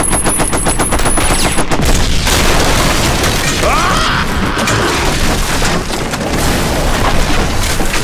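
Rapid machine-gun fire, about eight shots a second, for the first two seconds, then a long, loud boom and rumble of explosions that lasts to the end.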